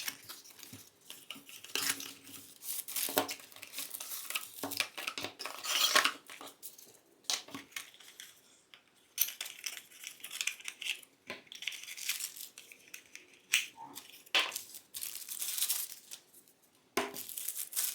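A cardboard product box and its packaging being opened and unpacked by hand: irregular short scrapes, crinkles and light knocks with brief pauses between them.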